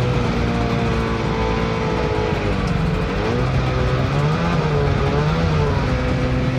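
Creek boat's engine running, its pitch rising and falling with the throttle, over a steady rushing hiss.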